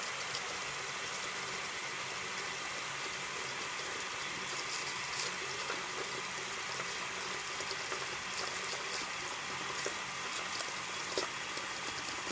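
Tap running steadily into a sink already holding water, the falling stream splashing into the standing water.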